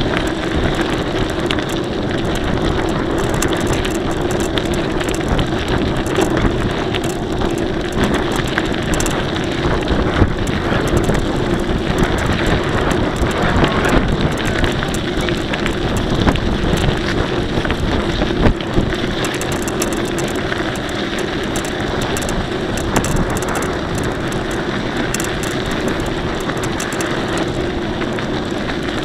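Mountain bike riding along: steady wind on the microphone and tyre and road noise, with a constant hum underneath and a few small knocks.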